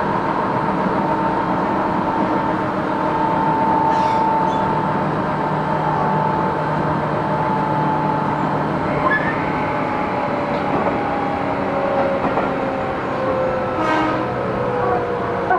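Cabin running sound of a Tobu 10030 series field-chopper electric train: a steady rumble of the car on the rails with a motor whine whose tones slowly fall in pitch, and two faint clicks about four seconds in and near the end.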